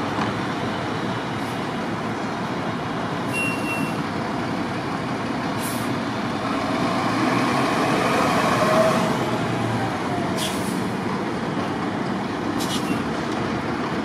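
Heavy trucks running in city street traffic, with a steady engine and road rumble. One vehicle passes louder about eight to nine seconds in, and a few short high hisses are heard.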